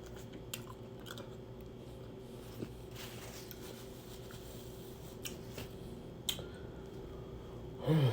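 A person chewing food close to the microphone: soft wet mouth sounds with scattered small clicks, and a brief louder smacking patch about three seconds in.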